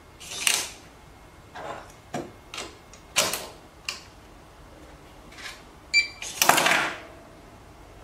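Electronic cabinet lock and its strike plate being handled, in a series of clicks and clacks; about six seconds in the lock gives one short electronic beep as the admin card is read and it unlocks, followed straight after by the loudest clatter as the latch comes free.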